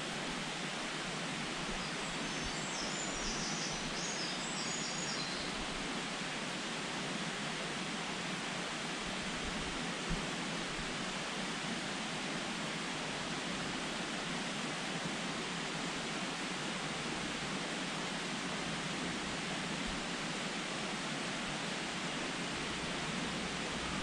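Steady even hiss of background noise, with a few faint high chirps about two to five seconds in and a single small tick near the middle.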